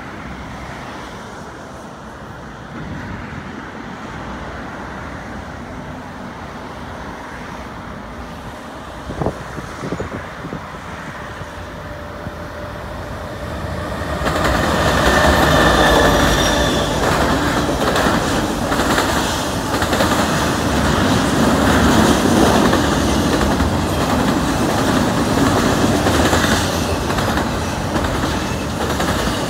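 CN freight train approaching and passing: the diesel locomotives grow louder and become loud about fourteen seconds in as they pass close by. Then the double-stack container cars roll past with a steady rumble and clacking of steel wheels over the rail joints.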